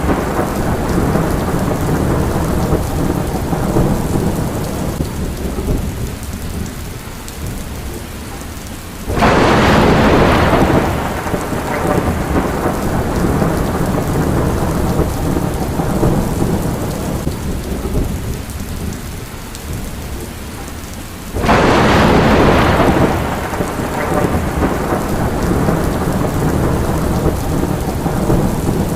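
Steady heavy rain with two sudden claps of thunder, about nine and twenty-one seconds in, each dying away over a couple of seconds into rumble.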